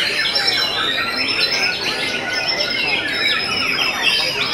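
White-rumped shamas (murai batu) singing at once: a dense, unbroken tangle of fast whistles and chattering phrases from several birds.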